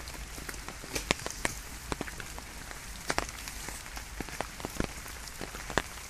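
Steady rain falling, with irregular sharp taps of single drops landing close by.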